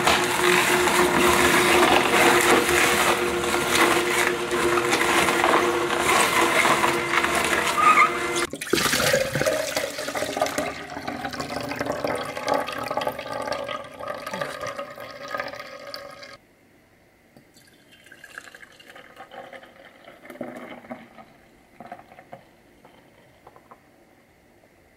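Electric vertical juicer running, its motor humming steadily as it grinds carrots, apple chunks and kale, with juice splashing through. The sound cuts off suddenly about two-thirds of the way through, leaving only faint liquid and handling sounds.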